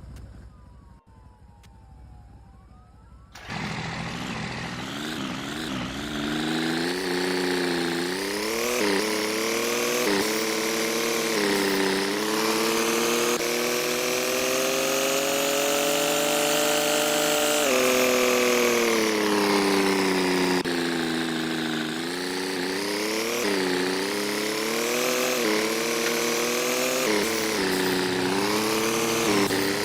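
An engine comes in suddenly about three seconds in and runs for the rest of the time, its pitch rising and falling again and again as the revs change.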